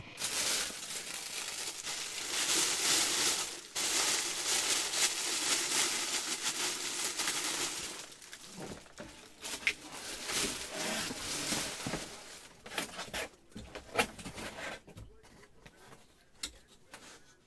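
Packaging crinkling and rustling as it is handled and torn: dense, continuous crinkling for about eight seconds, then scattered rustles and small clicks.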